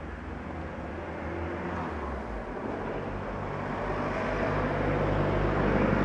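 Engine noise growing steadily louder as a vehicle approaches: a low, steady hum under a rising rush of noise.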